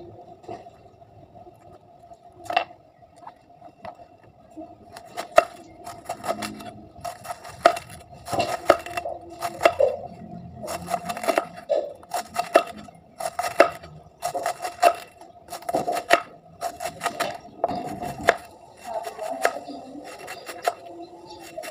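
Large kitchen knife shredding a head of cabbage on a wooden chopping board. Each stroke is a crisp cut through the leaves, and they repeat roughly once a second from a few seconds in. A steady faint hum runs underneath.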